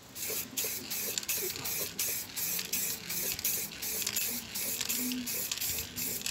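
Aerosol spray paint can hissing as paint is sprayed onto a helmet, the hiss broken by brief gaps about three or four times a second.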